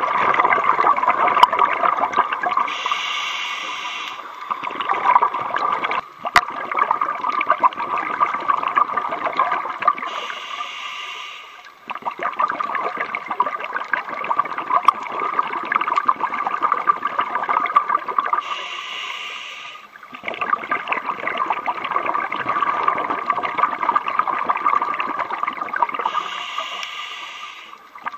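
Scuba diver's regulator breathing heard underwater: four short hissing inhales about eight seconds apart, each followed by a long stretch of exhaled bubbles gurgling and crackling.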